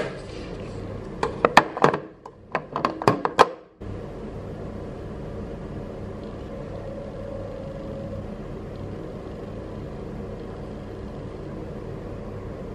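A quick run of sharp clicks and knocks, like small hard objects being handled, that cuts off suddenly after about three and a half seconds. After that comes a steady low hum.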